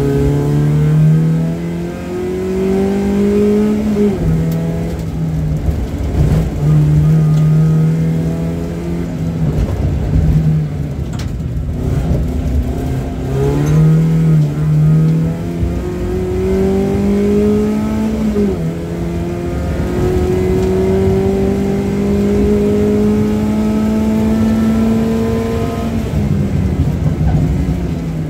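BMW 318ti race car engine heard from inside the stripped, caged cabin under hard driving. Its pitch climbs steadily under throttle, drops sharply at gear changes about four seconds in and past halfway, and breaks off briefly where the driver lifts off before accelerating again.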